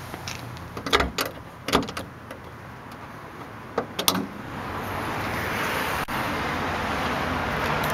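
Clicks and knocks of a Porsche 911's front trunk lid being handled and lifted open, the loudest about a second in and again about four seconds in. A steady hiss builds after that.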